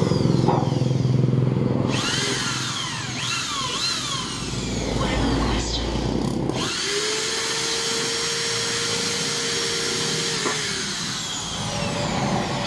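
Corded electric drill boring into the alloy hub of a motorcycle rear wheel, drilling the hub for a rear disc brake conversion. The motor speeds up and slows several times with rising and falling whines, then runs at one steady pitch for a few seconds from about seven seconds in before winding down.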